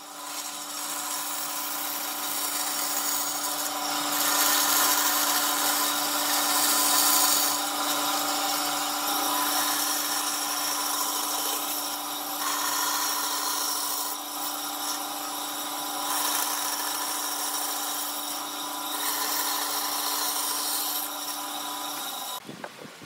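Bandsaw running with a steady motor hum while its blade cuts through pine boards in several passes; the cutting noise swells and drops as each cut starts and ends, and everything stops suddenly near the end.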